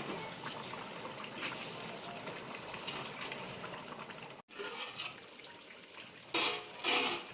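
Chicken pieces sizzling and bubbling in a pot of wet tomato-onion masala, a steady hiss of cooking. It breaks off for an instant partway through and comes back quieter, with two short louder sounds near the end.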